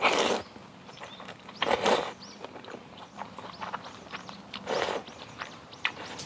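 Noodles slurped three times: three loud slurps about two and a half seconds apart, with short chirps and clicks between them.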